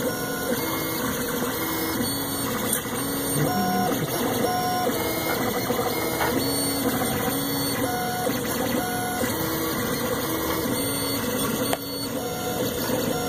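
Monoprice Maker Select 3D printer printing at 70 mm/s: its stepper motors whine in short tones that jump from pitch to pitch with each move of the print head, over a steady hiss.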